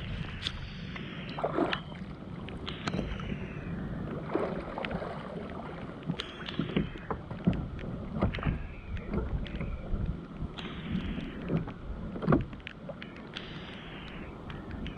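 Water swishing and splashing irregularly against the hull of a pedal-drive kayak underway, with sharp little clicks and knocks mixed in.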